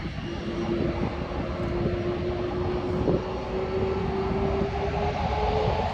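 Airbus A330-300 jet engines running, a steady whine that slowly rises in pitch over a low rumble.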